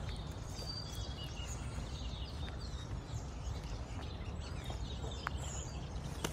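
Birds chirping in short, scattered calls over a steady low background rumble, with a couple of sharp ticks near the end.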